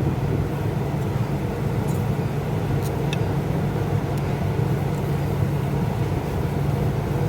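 A steady low mechanical hum over a noisy wash, with a few faint clicks.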